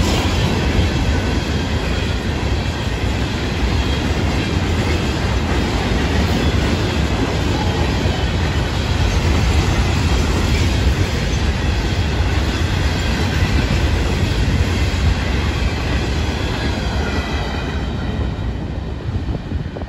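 Florida East Coast Railway freight train's rock hopper cars rolling past on the rails: a steady, loud rumble of wheels with a faint high-pitched wheel squeal. It eases off near the end as the last cars go by.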